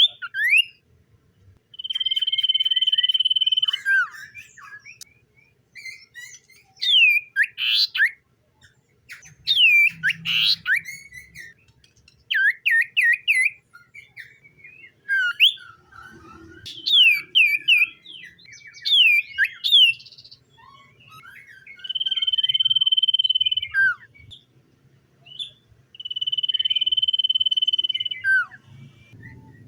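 Common iora singing: three long level whistles of about two seconds each, each ending in a quick drop in pitch, with bursts of rapid downward-sweeping chirps between them.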